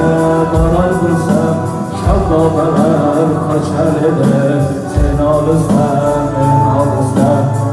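Male voices singing an Uzbek song together over amplified music.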